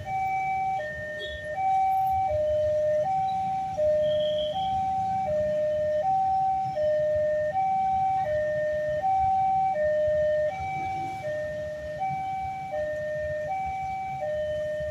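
Indonesian railway level-crossing warning siren sounding from the loudspeaker on the crossing signal post. It alternates a higher and a lower electronic tone, each lasting about three-quarters of a second, signalling that the barriers are down and a train is approaching. Low traffic noise from idling motorbikes runs underneath.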